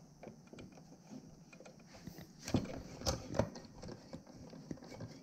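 Light clicks and taps of a plastic fuel pump module and its wiring being handled, with three louder knocks about two and a half to three and a half seconds in.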